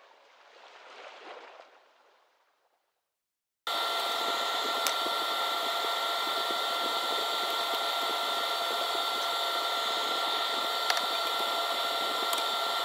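A small electric motor switches on suddenly about four seconds in and runs steadily with a constant whine, with a couple of faint clicks.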